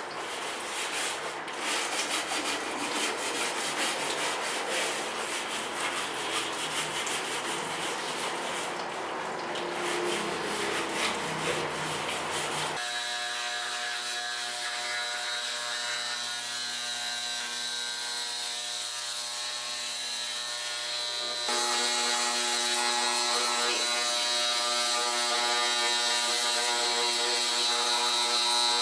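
Clicking, ratcheting and scraping of parts being handled as a drum washing machine is taken apart. About halfway through this gives way abruptly to a steady mechanical hum of several fixed tones, which steps louder later on.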